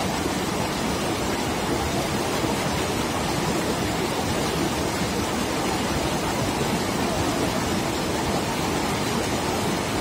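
Steady rushing noise of a wide, fast-flowing river.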